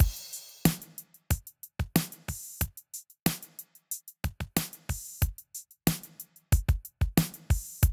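Drum kit loop playing back through an EQ plugin: a steady groove of kick drum, snare and cymbal hits, the kick carrying strong deep low end.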